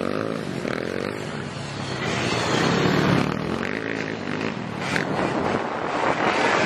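Dirt bike engines revving on a grasstrack circuit, their pitch rising and falling as the riders throttle through the muddy corners.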